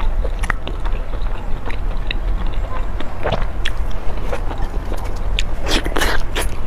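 Close-miked mouth sounds of someone biting and chewing soft, chewy cake: wet smacks and clicks throughout, with a longer, noisier squelch about six seconds in, over a steady low hum.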